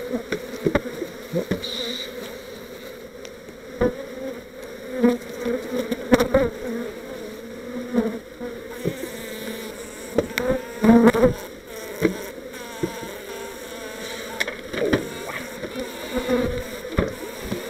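Honeybees buzzing around an open hive, a steady hum that swoops up and down in pitch as bees fly close. Sharp knocks and clacks come through it as the wooden hive parts and crown board are set back in place, several of them about ten to twelve seconds in.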